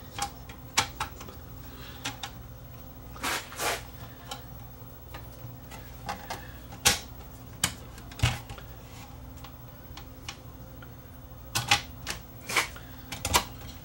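Irregular sharp clicks and knocks of plastic and sheet metal as the cassette deck's front nose cone is pressed into place and fitted by hand, with a few short rustles in between.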